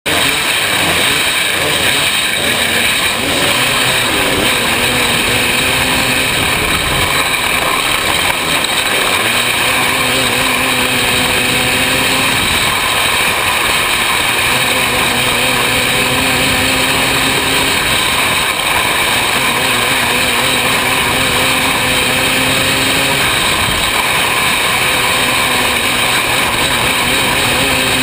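The 500cc engine of a winged micro sprint car at racing speed, heard loud on the on-board camera, its pitch rising and falling again and again as the throttle opens and closes.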